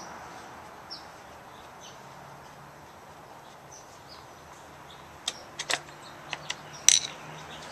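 Several sharp clicks and knocks, most of them in the last third, from a screwdriver working the screw of a Briggs & Stratton mower's plastic air filter cover. Short, faint bird chirps are heard now and then over a quiet outdoor background.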